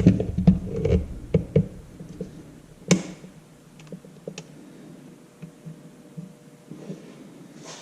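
Plastic clicks and knocks as a phone is handled and clamped into the phone holder of a motorized pan-tilt mount. There are several quick ones in the first second and a half and a sharper single click about three seconds in, then a few faint ticks.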